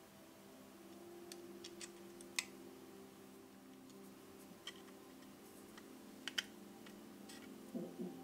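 Light, scattered clicks and taps of small plastic scale-model parts being handled and fitted, about ten in all, the sharpest about two and a half and six and a half seconds in, over soft sustained background music tones.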